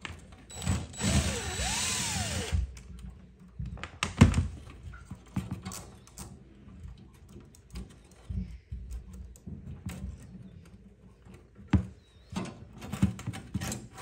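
Scattered clicks and knocks from wire connectors being worked off the terminals of a dishwasher heating element, with a louder rushing noise lasting about two seconds near the start.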